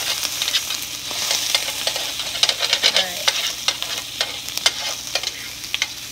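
Chicken skins sizzling in a hot stainless steel frying pan as their fat renders out, with frequent sharp crackles and clicks while metal tongs stir them around the pan. The pan is hot enough to be smoking a little.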